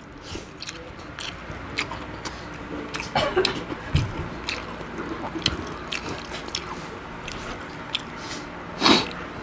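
Close-up mukbang eating sounds: chewing and biting with many small wet mouth clicks, and a soft thump about four seconds in.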